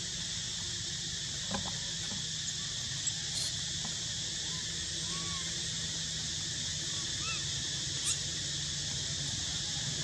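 Steady outdoor ambience: a continuous high insect hiss with a low hum beneath. Two or three brief, faint arched chirps come around the middle, with a light click or two.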